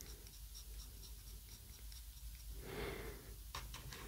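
Faint rubbing of soft pastel on paper, a soft scratchy swish that swells briefly about three seconds in, with a couple of light taps near the end.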